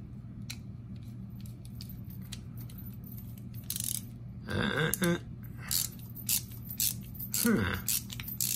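Precision screwdriver driving a small screw into a slip joint pocketknife's handle, making a few sharp, small clicks as the bit works the screw tight. Twice a short low vocal sound falls in pitch.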